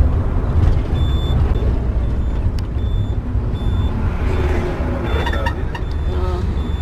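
Motorhome bus engine running with a steady low rumble, heard from inside the vehicle. Over it, a short high electronic beep repeats at even spacing, a little more than once a second.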